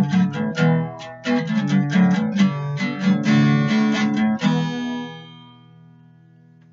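Acoustic guitar strummed in a quick, steady rhythm, closing on a final chord about four and a half seconds in that rings out and fades away.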